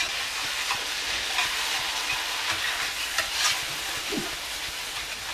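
Chili-paste and butter sauce sizzling in a large wok while a spatula stirs and scrapes it around the pan, a steady sizzle broken by scattered scrapes.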